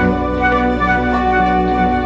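Background instrumental music: a melody of held notes over a sustained accompaniment.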